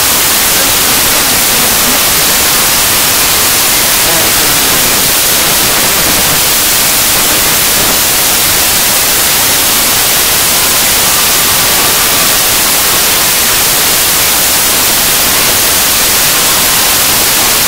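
Loud, steady hiss like static over the audio track, with faint voices buried beneath it.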